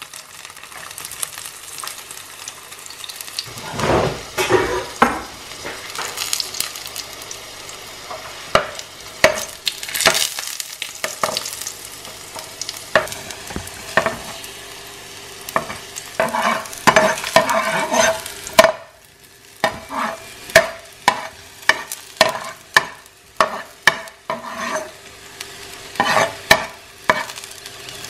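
Garlic cloves frying in a little hot oil in a pan, sizzling steadily, while a utensil stirs them with frequent scrapes and taps against the pan. The sizzle drops away briefly about two-thirds of the way through.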